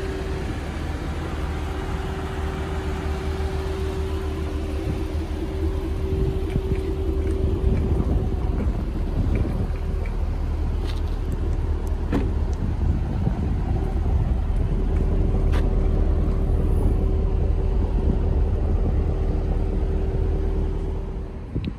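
Chevrolet Camaro LT1's 6.2-litre V8 idling with a steady low rumble, louder from about eight seconds in, with a few faint clicks.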